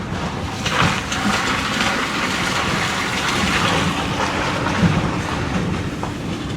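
Vehicle driving over a rough road: a steady rumble of tyres and running gear with continual rattling and crunching.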